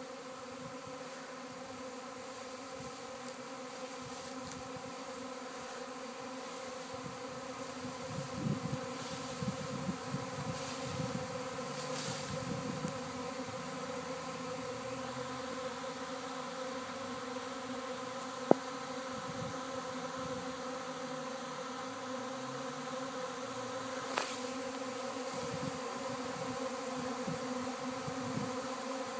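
A honeybee swarm in flight gives a steady, dense buzzing hum from many bees at once. One sharp click comes about two-thirds of the way through.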